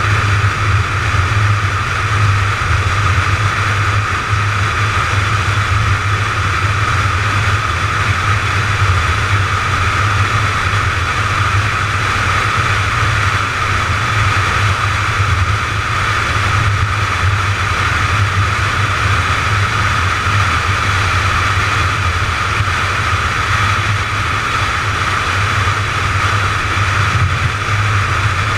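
McLaren 570GT cruising steadily at highway speed, heard from onboard: a constant low drone with road and wind noise that stays even throughout.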